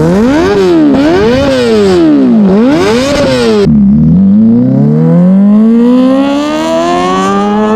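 Kawasaki ZX-25R's 250cc inline-four revving hard through an aftermarket exhaust, several quick blips up and down to a high-pitched peak. Then it abruptly switches to the bike accelerating away, its pitch climbing steadily.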